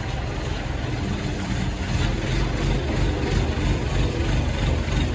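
Mobile crane's diesel engine running steadily while the crane lowers a heavy load, getting a little louder about two seconds in.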